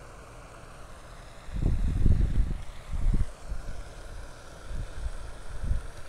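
Wind buffeting the microphone of a camera mounted on a fishing rod: low rumbling gusts starting about a second and a half in and again near the end, over a faint steady hiss.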